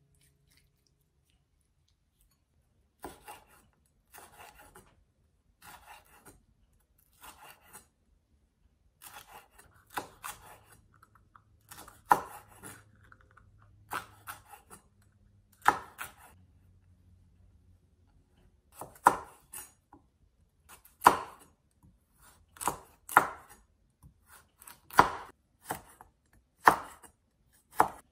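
Chef's knife slicing peppers and carrot into strips on a wooden cutting board: separate, irregular knife strokes knocking on the board. The strokes are faint and sparse at first and grow louder and more frequent over the last third.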